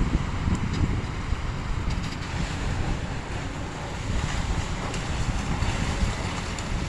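Wind buffeting the microphone: a fluttering low rumble over a steady hiss, with a few faint clicks.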